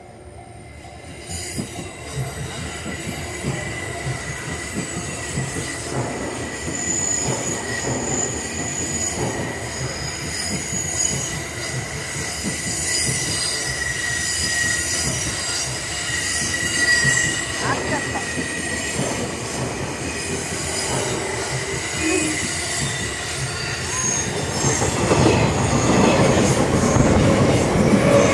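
JNR 189-series electric train running slowly past, its wheels squealing steadily and high-pitched over the rumble of the cars. The train grows louder about a second in and louder again near the end.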